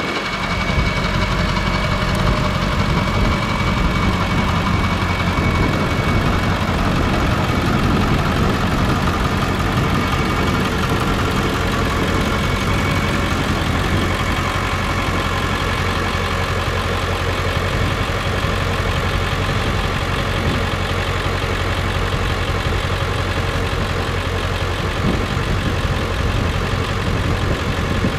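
Pickup truck's engine idling steadily.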